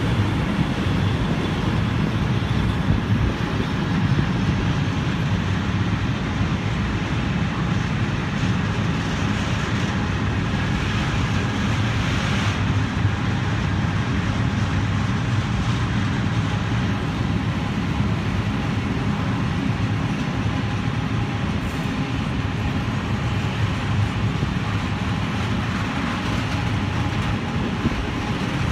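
Freight train hauled by a Rail Polska 201Eo locomotive passing close by: a steady low rumble of wheels rolling over the rails, with faint steady tones above it.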